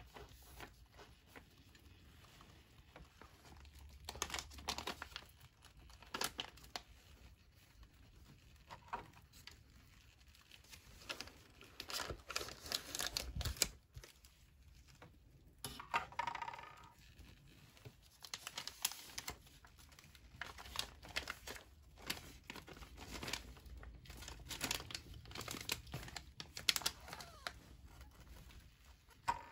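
Plastic bag of an MRE flameless ration heater crinkling in scattered bursts as gloved hands press and fold it.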